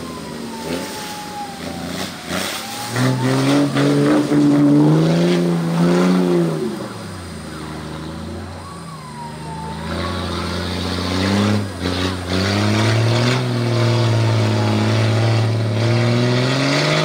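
Off-road 4x4 vehicle's engine revving under load, its pitch climbing and dropping several times, with a few sharp knocks and a thin whine rising and falling above it.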